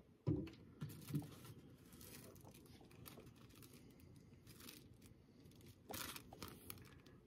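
Faint rustling and crinkling of a clear plastic bag and small packaging as it is handled by hand. There are a few short louder rustles, one just after the start and another about six seconds in.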